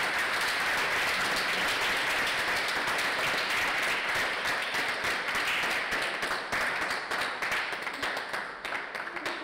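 Audience applauding: dense clapping that holds steady and thins slightly near the end.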